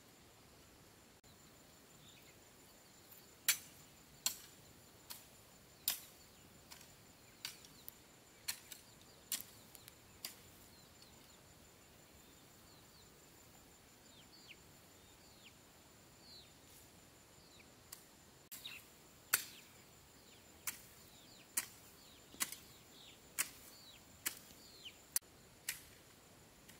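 Sharp strikes of a hand tool, roughly one a second, in two runs separated by a pause of about eight seconds.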